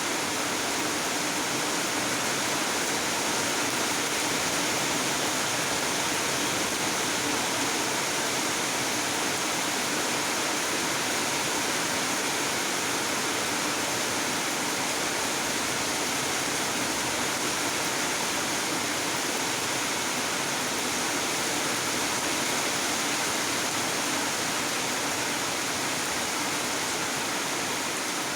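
Steady rain falling, a dense even hiss that holds without a break.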